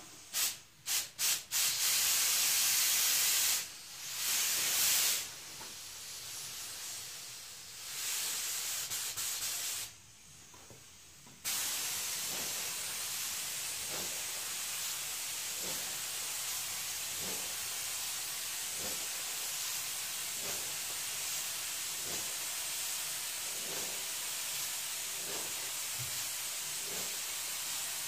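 Gravity-feed compressed-air spray gun laying a first coat of 2K high-build primer, a hiss of air and spray. It comes in a few short bursts at first, then longer passes with a brief stop about ten seconds in, and after that a steady, unbroken hiss.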